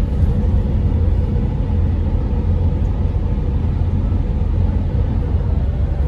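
Steady low rumble of road and engine noise inside the cabin of a Mercedes-Benz Sprinter van on the move.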